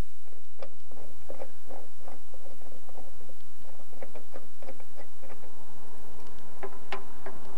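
Light, irregular clicks and scrapes of hands working at the windshield bracket's fastener inside a steel glove box.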